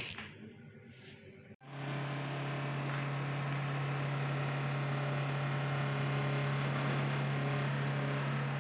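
Samsung microwave oven running while it bakes a cake, a steady loud hum that starts about one and a half seconds in. A short knock comes just before it.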